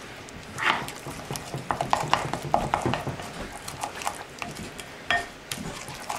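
A spoon stirring and mashing thick pesto in a ceramic bowl, with irregular clicks and knocks as it strikes the side of the bowl.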